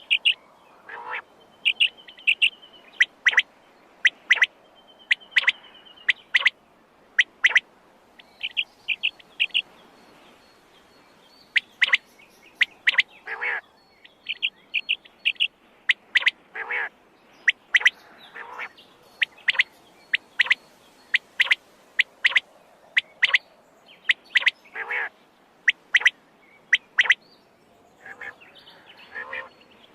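Quail calling over and over: short, sharp, high calls, often in quick groups of two or three, with lower, softer calls and a few short trills in between.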